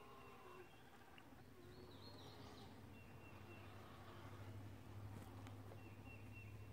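Near silence: a few faint, short bird chirps, with a low steady hum underneath.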